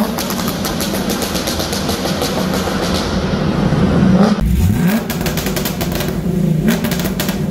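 The 2002 Corvette Z06's cammed LS6 V8 running loud through its exhaust with a rapid crackle of pops. A little over four seconds in, the engine revs up quickly, and the popping carries on.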